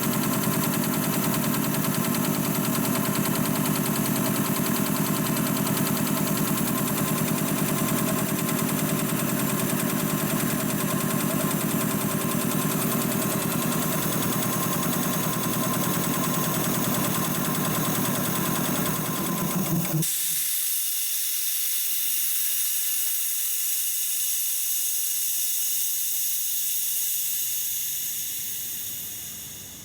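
DeVilbiss DevAir 445 two-stage industrial air compressor pump running under load as the tank nears full pressure, then shutting off at its pressure-switch cutoff about twenty seconds in. A steady hiss of released air follows and fades away near the end.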